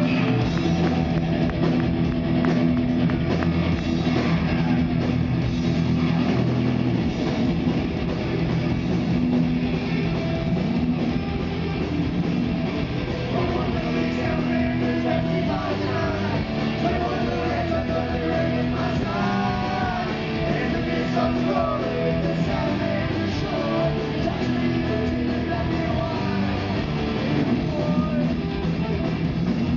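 Rock band playing live: electric guitars, electric bass and drum kit in a loud, steady full-band sound. Wavering, bending notes stand out about halfway through.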